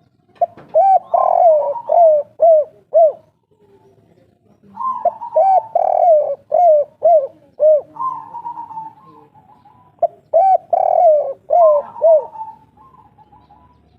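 Spotted dove (tekukur, local 'kuk 3' type) cooing in three phrases. Each phrase is a quick run of short, hooked coos, with a fainter steady call between them.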